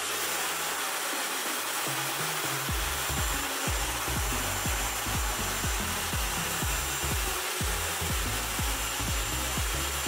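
Dyson Supersonic hair dryer blowing steadily. Background music with a steady low beat comes in about three seconds in.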